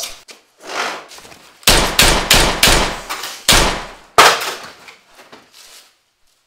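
About six loud, sharp bangs in quick succession, starting about two seconds in, each ringing briefly before the next.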